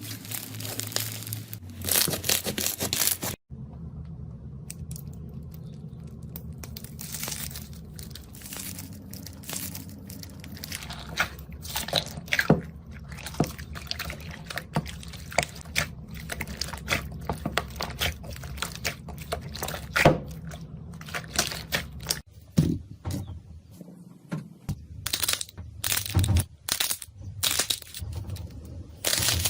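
Slime being squeezed and poked by hand, giving crunchy crackles and sticky clicks, with abrupt changes in texture about three and a half seconds in and again past twenty seconds.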